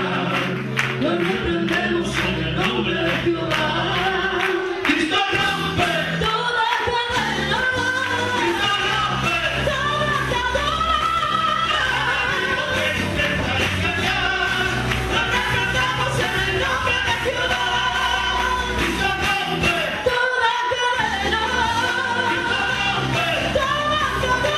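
A woman and a group of men singing a song together into microphones, over acoustic guitar and other instrumental accompaniment with steady low notes.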